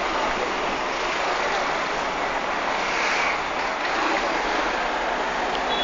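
Steady rushing noise of road traffic, with no pauses. A faint high, steady two-note tone comes in near the end.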